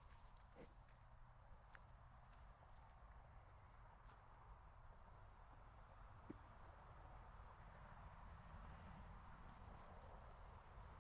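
Faint, steady high-pitched chirring of crickets, with a couple of soft clicks.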